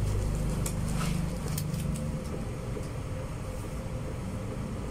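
Low rumble of a passing road vehicle, easing after about two seconds, with a few light taps and rustles of packaging being handled.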